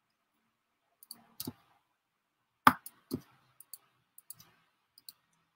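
Scattered clicks and small knocks from a computer mouse and keyboard, the loudest about two and a half seconds in.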